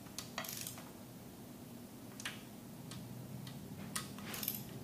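Ratchet wrench clicking in short, irregular bursts as the oil filter adapter bolts are run down, over a steady low shop hum.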